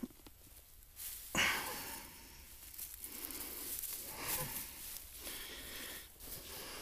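Dry swale grass rustling and a rope scraping as a drag rope is worked around a dead whitetail buck's antlers, with a louder burst about a second and a half in.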